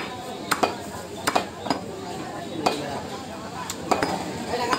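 Butcher's cleaver chopping beef on a wooden log chopping block: a string of sharp, irregular chops, about eight of them.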